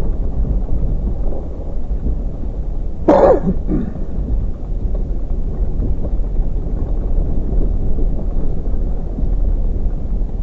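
Steady low rumble of a truck on the move, with a short two-part cough or throat clearing from a man about three seconds in.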